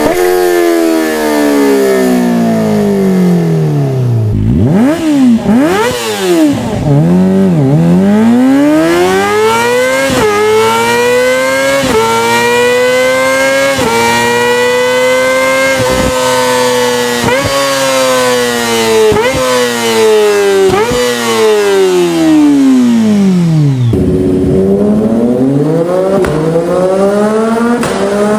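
Sports motorcycle engine and exhaust revving: its pitch falls, then several quick throttle blips. After that comes a long rise and fall in pitch, broken by short cuts about every second and a half.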